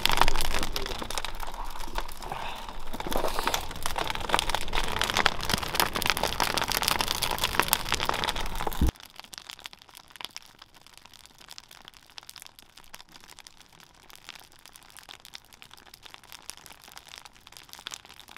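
A large wood bonfire crackling and popping. The crackle is loud at first, then drops suddenly to a much quieter crackle about nine seconds in.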